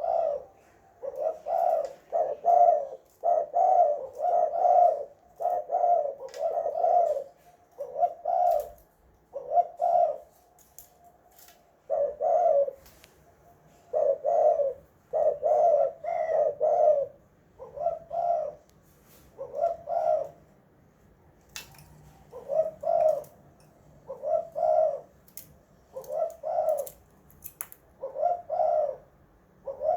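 Spotted dove cooing over and over: phrases of short, low coos with brief pauses between them.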